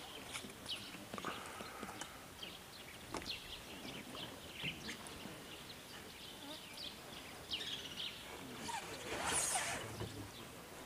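Quiet outdoor forest ambience with scattered short, high chirps and a louder rustle about nine seconds in.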